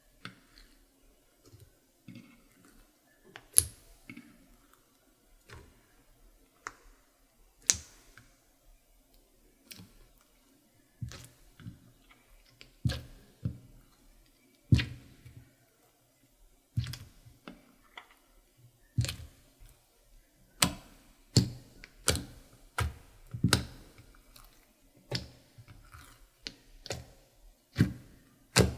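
Clear slime being kneaded and pressed by hand, giving off irregular sharp clicks and pops from trapped air, sparse at first and coming more often, about one to two a second, in the second half.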